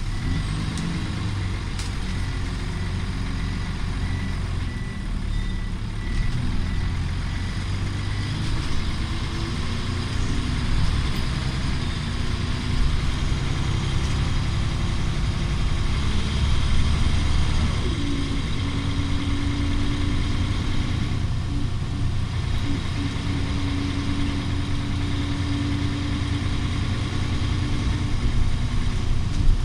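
Volvo B10BLE single-deck bus's rear-mounted diesel engine running, heard from inside the passenger saloon as a steady low drone whose note changes about eighteen seconds in. A regular high-pitched beeping sounds through the first eight seconds or so.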